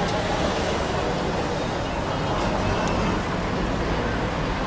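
Steady roadside street noise from passing traffic, with people's voices faintly in the background.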